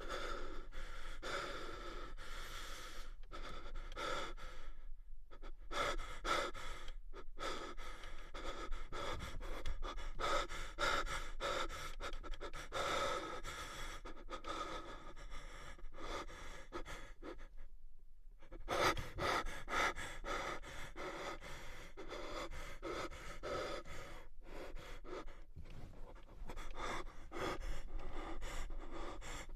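A man breathing deeply and heavily, panting in quick rasping breaths with brief pauses. A sound effect meant to be menacing.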